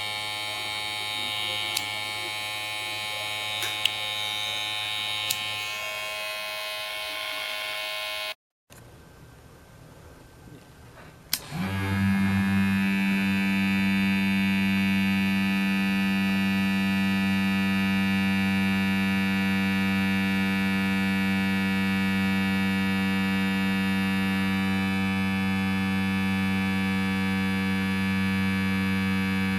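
Electric hair clipper running with a steady buzz, with a few sharp clicks in the first part. About eight seconds in the sound breaks off. Shortly after eleven seconds a click is followed by the clipper running louder, with a strong steady low hum.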